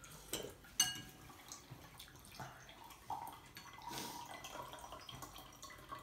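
A sweet drink trickling from the tap of a glass drink dispenser into a drinking glass. Glass clinks sharply about a second in.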